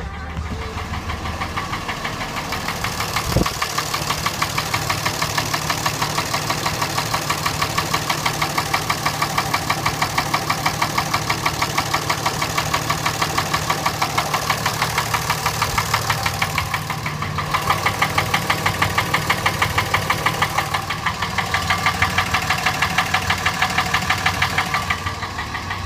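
Common-rail diesel engine idling with a fast, regular knock. The knock persists after the fuel lift pump, injectors and CP3 high-pressure pump were replaced. There is a single sharp thump about three seconds in.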